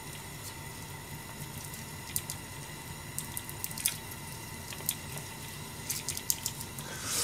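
Whole garlic cloves heating in olive oil in a frying pan, giving sparse, irregular crackles and pops over a steady low hum, with a brief louder rustle near the end.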